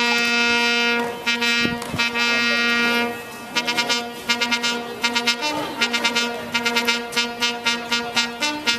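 Instrumental music: a steady note held throughout, with long sustained tones at first, then quick repeated short notes from about three seconds in.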